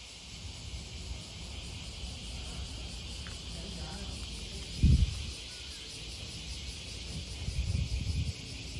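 Insects chirping in a steady high drone, with a low thump about five seconds in and a stretch of low rumbling near the end.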